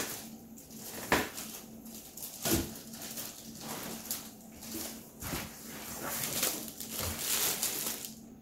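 Plastic wrapping crinkling and crackling, with foam packing rubbing and squeaking, as a boxed inverter is pulled out of its packaging. The crackling is irregular and stops abruptly near the end.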